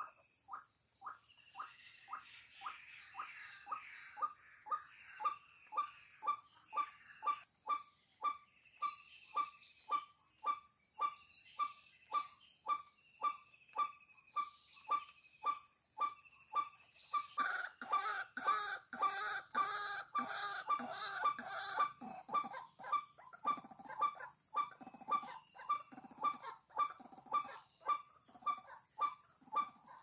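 White-breasted waterhens calling: a monotonous string of short, harsh 'kwak' notes at about two a second, with a second, fuller bout of calling overlapping for a few seconds just past the middle. A steady high insect drone runs underneath.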